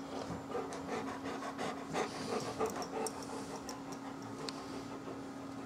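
Large coonhound panting with its mouth open, the breaths heavier in the first few seconds and easing later.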